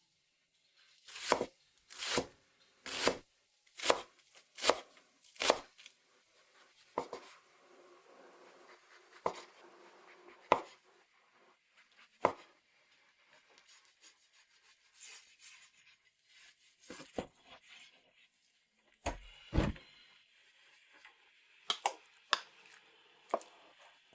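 Knife chopping food on a cutting board: six firm strokes a little under a second apart, then scattered single knocks, with a heavier thud about nineteen seconds in.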